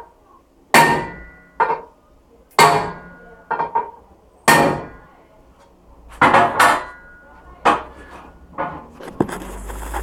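A hammer striking metal about a dozen times at an irregular pace, some blows coming in quick pairs, each hit ringing briefly.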